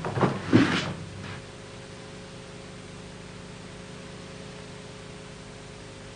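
Steady hiss and hum of an old videotape soundtrack, after two short loud bursts in the first second.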